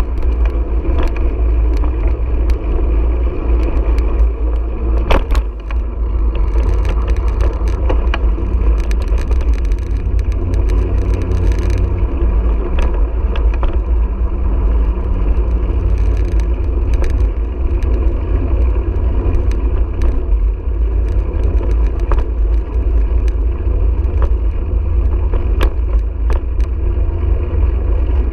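Steady rumble of wind buffeting a bicycle-mounted GoPro's microphone while riding, mixed with road noise and rattle from the tyres rolling over pavement. Sharp knocks now and then as the bike goes over bumps.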